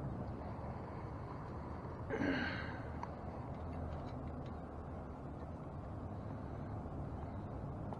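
A short sigh or breathy exhale about two seconds in, over a steady low hum, followed by a few faint clicks of parts being handled.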